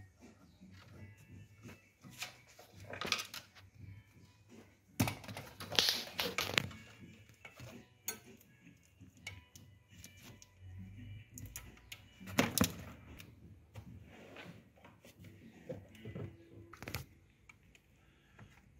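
Plastic wiring-harness plugs and loose wires being handled: scattered clicks, rattles and rustles, with a loud cluster of clatter about five to six seconds in and another sharp one about twelve seconds in.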